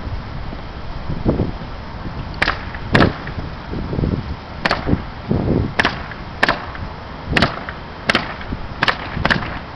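Cellulose insulation being blown through a flexible hose: a steady rush of air. From about two and a half seconds in, sharp cracks come roughly once or twice a second.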